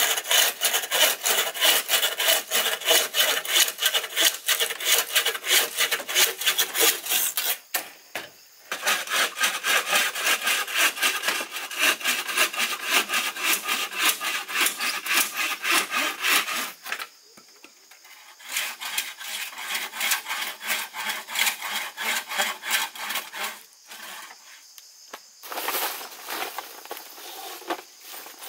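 Hand saw cutting bamboo: quick, even back-and-forth strokes in four bouts, with brief pauses between them.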